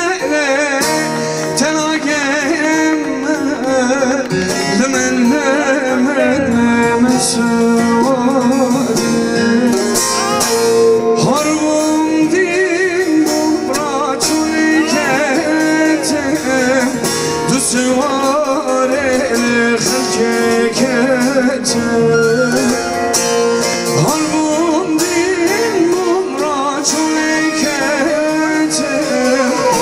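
Male singer singing a folk song with a wavering, ornamented voice, accompanied by a plucked bağlama and other live instruments.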